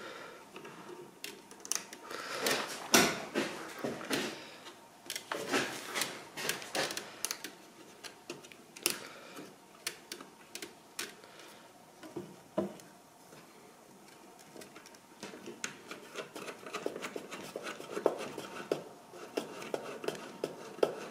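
Irregular small clicks, taps and rustles of hands working the plastic wire-feed mechanism of a MIG welder, threading copper-coated welding wire from the spool into the feed rollers. There is a quieter lull a little past the middle.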